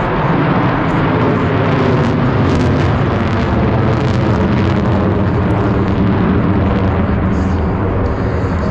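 Loud, steady jet noise from a formation of F/A-18 Super Hornets flying a slow loop with landing gear and tailhooks extended.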